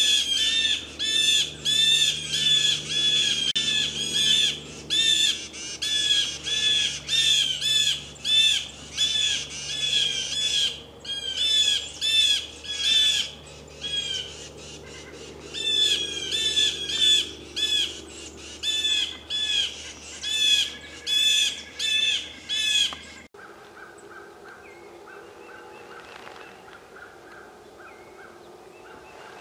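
Loud, harsh animal calls repeated about twice a second, each one arching up and down in pitch. They stop abruptly about 23 seconds in, leaving a quiet woodland background.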